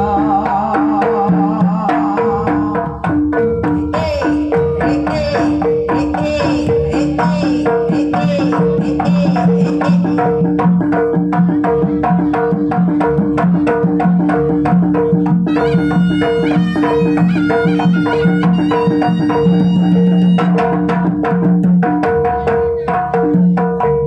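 Live Javanese jaranan gamelan: fast kendang drum strokes over a repeating pattern of bronze pot-gong notes, with a woman singing through a microphone during the first part. A high, bright sound with many tones joins for several seconds past the middle.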